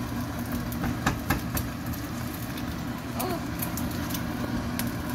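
Eggs frying in hot oil in a nonstick pan, with scattered crackles and pops from the oil, over a steady low hum.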